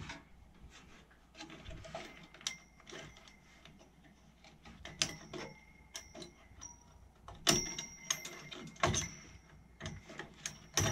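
Scattered clicks and taps of hands working clips and parts inside an opened desktop computer case, some with a short metallic ring; the sharpest come about two-thirds of the way in.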